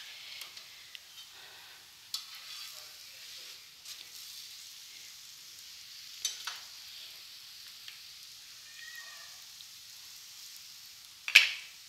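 Paratha sizzling steadily on a hot iron tawa as oil is spread over it with a spoon, with a few short clinks and scrapes of the spoon on the pan; the loudest clink comes near the end.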